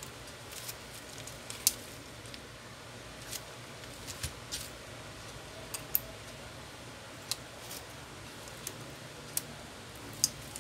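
Irregular sharp clicks and light taps as a Realme C11 smartphone's display frame and parts are handled and pried with a plastic pry tool, over a steady low background hum.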